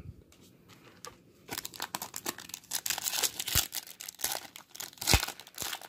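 Foil wrapper of a baseball-card pack crinkling and tearing as it is ripped open by hand, a fast irregular crackle that starts about a second and a half in.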